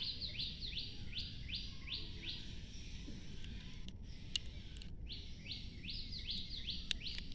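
A bird chirping repeatedly in the background, short high notes at about three a second, in two runs with a pause of about three seconds between them. A faint single click a little past halfway.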